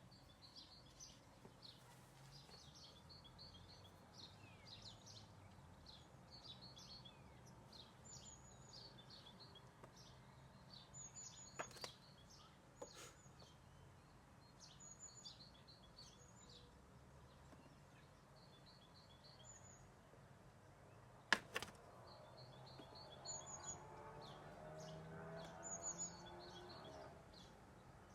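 Faint outdoor ambience with small birds chirping in short repeated calls throughout. Two sharp clicks stand out, the louder one about two-thirds of the way in, and near the end a faint low droning hum swells and fades.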